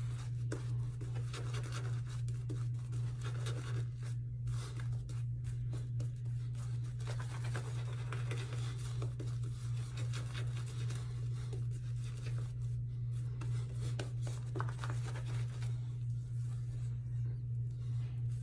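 Turn N Shave shaving brush with a grey wolf knot working shave lather, a run of short scratchy, swishing brush strokes. A steady low electrical hum runs underneath.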